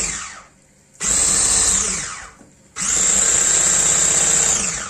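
Electric hand mixer with twin beaters whisking cake batter, switched on and off in bursts: a run stops about half a second in, then two more runs of about one and two seconds follow. Each whine falls in pitch as the motor spins down.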